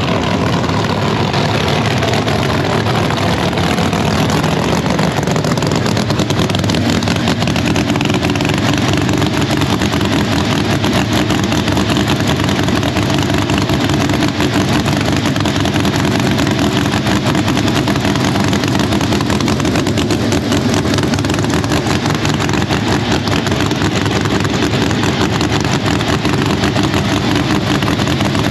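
Lexus RC-bodied drag car's race engine running loudly and steadily at idle, with no revving.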